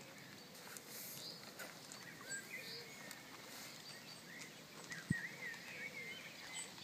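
Faint outdoor ambience with small birds calling: scattered short chirps and twittering calls throughout. A single sharp knock about five seconds in.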